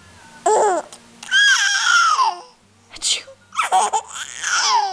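Seven-month-old baby's high-pitched squeals and laughing vocalizations, four in a row with short gaps, the longest about a second, each sliding down in pitch at its end.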